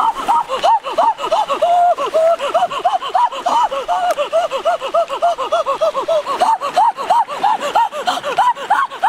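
High-pitched snickering laughter: a rapid, unbroken run of squeaky rising-and-falling giggles, about four or five a second.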